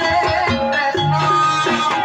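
Live kuda lumping gamelan music: a kendang barrel drum beating a steady pattern under a quick melody of held, stepping notes.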